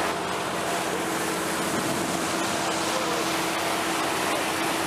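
Boat under way: a steady motor hum over the constant rush of water churned up in its wake.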